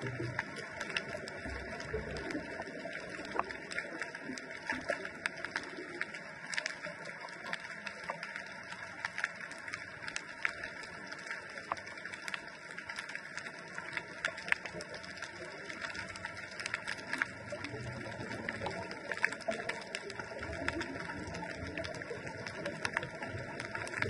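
Underwater ambient sound picked up by a GoPro in its waterproof housing: a steady hiss with frequent, irregular sharp clicks and crackles.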